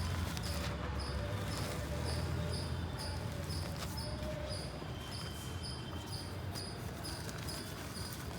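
Dry clay being crumbled and crushed by hand, giving soft low thuds and a few sharp crackles, while a short high chirp repeats about twice a second in the background.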